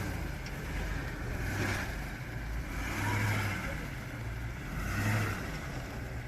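Toyota off-road truck's engine rumbling and revving in repeated surges, about every couple of seconds, as it works to pull a wheel out of a muddy hole where one tire has no traction.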